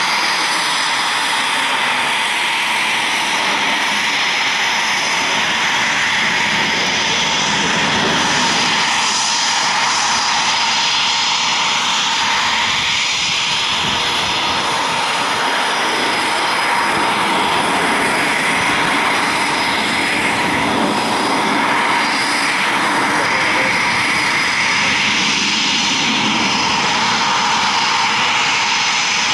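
Jet noise from BAE Hawk Mk 65 jet trainers, each powered by a Rolls-Royce Turbomeca Adour turbofan, flying an aerobatic display. It is a steady, loud rush with a high whine held through it.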